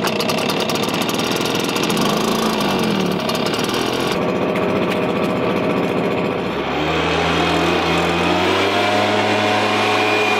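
Stihl backpack leaf blower's petrol engine running steadily.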